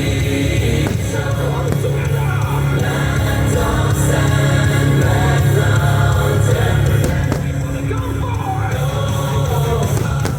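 Music with singing and a choir over a steady, heavy bass.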